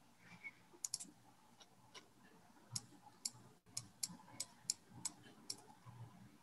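Faint, irregular clicking: about a dozen short, sharp ticks spread over several seconds, over low room noise.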